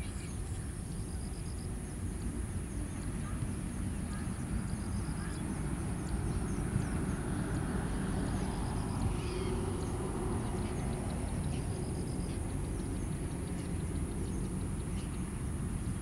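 Steady low outdoor rumble, with a constant thin high hiss over it and faint short bursts of high-pitched bird notes four times.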